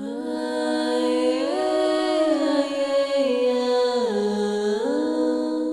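Wordless a cappella vocal harmony: layered sung voices hold long chords that shift in pitch together every second or so.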